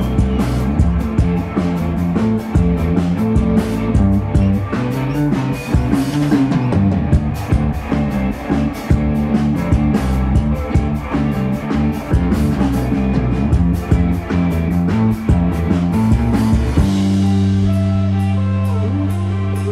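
Live psychedelic rock band playing an instrumental passage on electric guitars and drum kit, the drums hitting steadily. About three seconds before the end the drums stop and the band holds one sustained, ringing chord.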